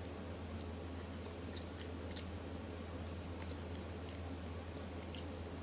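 A person chewing and biting food close to the microphone, with scattered small wet mouth clicks, over a steady low electrical hum.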